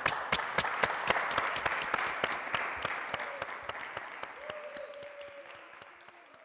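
Applause, with sharp, close hand claps standing out, fading out gradually over the last few seconds.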